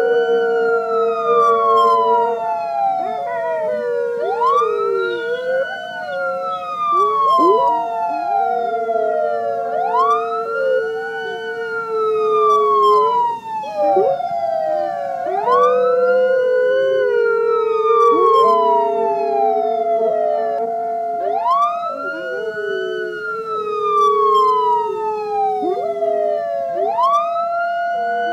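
Emergency vehicle siren wailing, rising quickly and falling slowly, repeating about every five seconds. A pack of canines howls along in long, wavering held notes.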